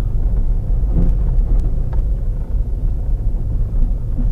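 Car driving on a snowy, icy road: a steady low rumble of engine and road noise, with a couple of faint ticks.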